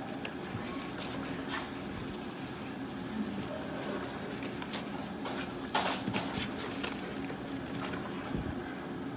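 Water splashing in a shallow plastic pool of foamy water as French bulldogs play in it, with a cluster of louder splashes about six seconds in.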